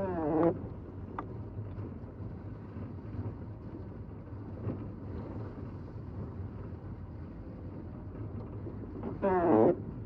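Inside a car driving on a snowy road: a steady low rumble of engine and tyres, with the windshield wiper blade squealing across the glass twice, at the very start and again near the end.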